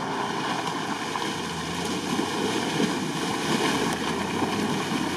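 Jeep Wrangler Rubicon ploughing through deep mud and water, its engine running under load while the tyres churn and splash through the muddy water, slowly growing louder as it comes closer.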